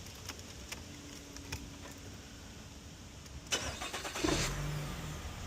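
Nissan X-Trail engine being started: a few faint clicks, then the engine cranks and catches about three and a half seconds in and settles into running.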